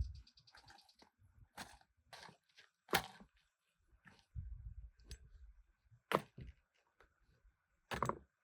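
Irregular sharp clicks and knocks, with three louder cracks about three, six and eight seconds in.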